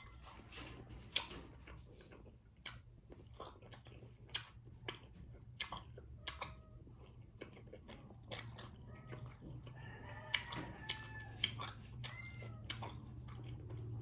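A person chewing and biting into a whole native guava close to the microphone: irregular crisp crunches, about one or two a second, with wet mouth sounds between them.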